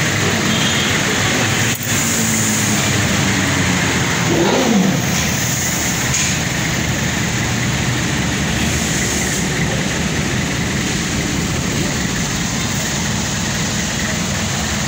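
Steady noise of an idling vehicle engine mixed with street traffic, heard from inside a minibus cabin, with a brief louder falling tone about four seconds in.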